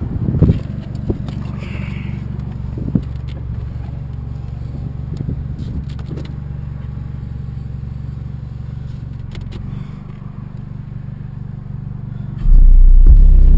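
Rockford Fosgate T1 12-inch subwoofers playing an ultra-low bass song, a steady deep bass line at moderate level; near the end a much louder, very deep bass drop hits suddenly.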